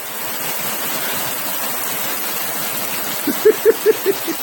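Steady rain falling. Near the end comes a quick run of about seven short, high-pitched vocal sounds.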